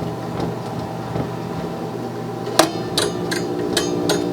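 Tube record player amplifier humming steadily through its speaker, with sharp scratchy crackles from a little past halfway as the volume is turned up. The hum is filter hum, the sign of a failing filter capacitor letting AC into the DC line.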